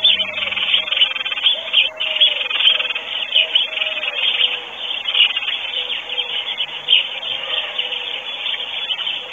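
Songbirds chirping and singing, many short overlapping calls, with a lower wavering note underneath.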